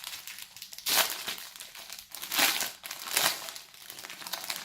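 Packaging crinkling and rustling as it is handled to pull out a small cloth, in irregular bursts with the loudest about a second in and again past the middle.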